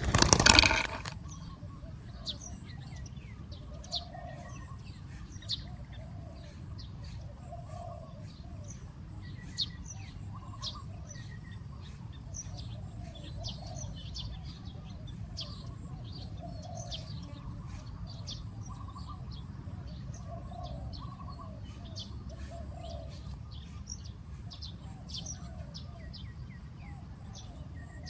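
Small birds chirping with short high notes, over a repeated low coo of a spotted dove, with a steady low background rumble; a loud sound lasting about a second opens it.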